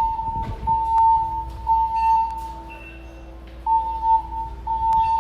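Fire alarm evacuation tone: one steady tone in a repeating three-pulse pattern. Three tones of about a second each with short breaks, a pause, then the pattern starts over. This is the temporal-three signal calling for evacuation.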